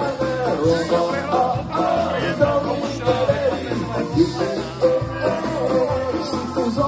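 Ska band playing a song live over a PA, with sung vocals, electric guitar, drums and a steady bass line.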